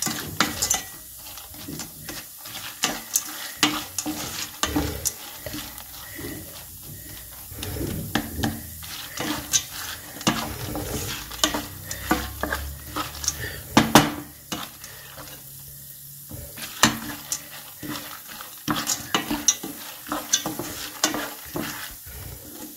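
Wooden spatula stirring dried popcorn kernels in a nonstick pan with hot ghee and melting sugar: the kernels rattle and scrape against the pan in irregular clicks, with a sharper knock about two-thirds of the way through. Stirring keeps the sugar-coated kernels from burning on the bottom.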